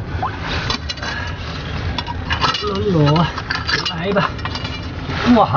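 A metal hook rod scraping and clinking against rocks as it is poked into a reef crevice to work out sea snails: many short irregular clicks and scrapes.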